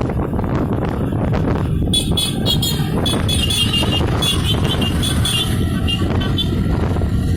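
Motorcycle engine running at road speed under a steady rumble of wind on the microphone. From about two seconds in, a high flickering, chirping sound rides on top for a few seconds, then fades.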